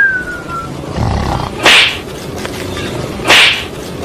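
Two short, loud, harsh animal calls about a second and a half apart, after a brief falling squeal right at the start.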